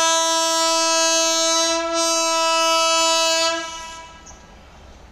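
Train locomotive's horn sounding one long, steady blast as the train approaches, cutting off about three and a half seconds in.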